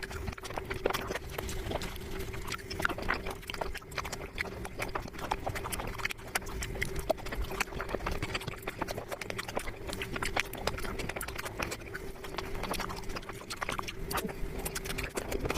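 Close-up eating sounds: rapid, irregular crunching and mouth clicks of someone chewing food, over a faint steady hum.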